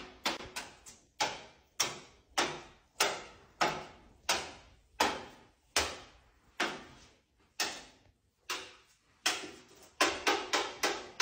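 A series of sharp taps, about one to two a second, each fading quickly, coming quicker near the end.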